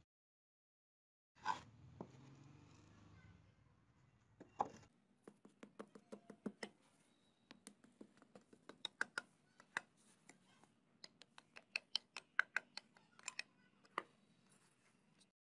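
A single knock about a second and a half in, then a long uneven run of small sharp clicks and taps, several a second, as pliers dig through loose casting sand and knock against a freshly cast metal piece.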